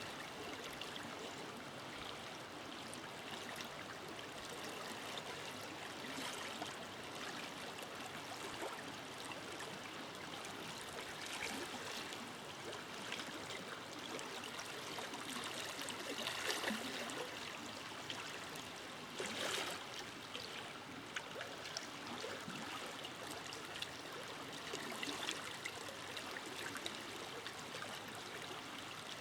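Forest river flowing steadily over stones, with a continuous rush of water and small splashes and gurgles breaking through now and then, a little stronger about sixteen and nineteen seconds in.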